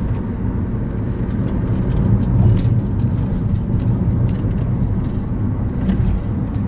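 Car cabin noise while driving: a steady low rumble of engine and tyres on the road, with a few faint ticks.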